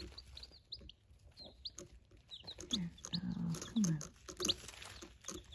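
Baby chicks peeping: many short, high cheeps scattered throughout, with a few light clicks among them.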